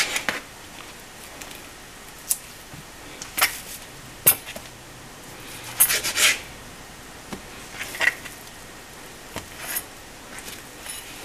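Kitchen knife trimming fat off a raw ribeye steak on a plastic cutting board: scattered short taps and scrapes of the blade against the board, with quiet stretches between.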